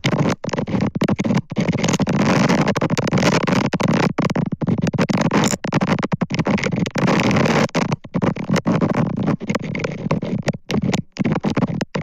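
Storm wind buffeting an outdoor nest-cam microphone: a loud, rough, continuous rushing noise that cuts out briefly many times.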